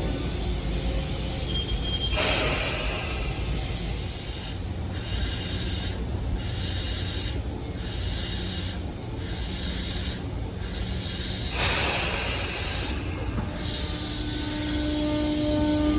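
Tobu 9000-series electric train with hissing surges of air, about two seconds in and again near twelve seconds. Near the end the armature-chopper control's steady whine starts up and begins to rise in pitch as the train starts to move.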